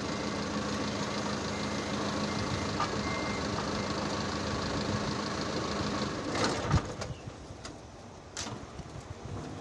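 An engine runs steadily, with a faint on-off high beeping over it. It stops about six seconds in, with a loud clunk just after, then a few quieter scattered knocks.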